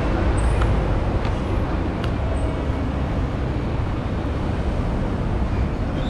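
Steady road traffic noise from cars on a city street.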